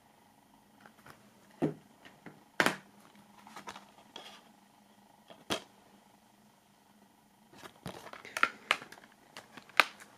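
Plastic DVD slim case being handled, opened and snapped shut: scattered sharp plastic clicks, with a quick run of clicks and rattles in the last few seconds.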